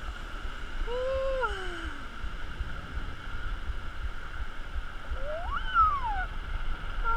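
Roller coaster ride noise picked up by a rider's GoPro: a steady low rumble and hum, with two short rising-and-falling whoops from riders about a second and five seconds in.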